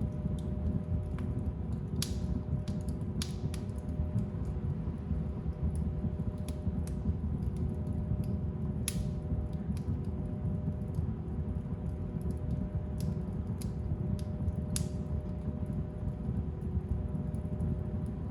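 Fire burning in a fireplace: a steady low rumble of flames with scattered sharp crackles and pops every few seconds.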